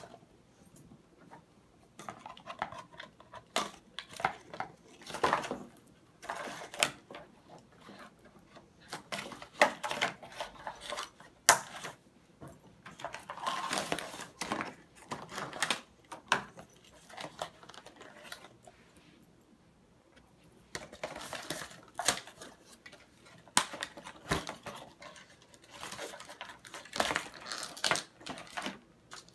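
Cardboard and plastic toy packaging being handled and pulled apart to free a toy broom: irregular rustling, crinkling and light clicks and taps, in spells with short pauses and a quieter stretch past the middle.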